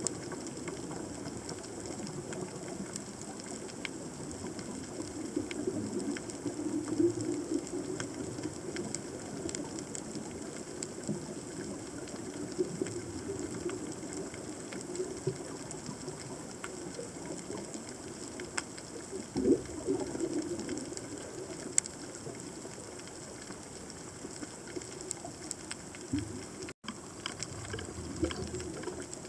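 Underwater reef ambience: a steady crackle of many sharp clicks, snapping shrimp, over a low, wavering rumble of moving water. The sound drops out for an instant near the end.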